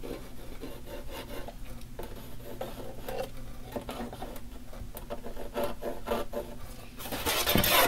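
Pencil scratching along the edge of a metal picture frame, tracing its outline onto a wooden panel in short strokes, with a louder scrape about seven seconds in.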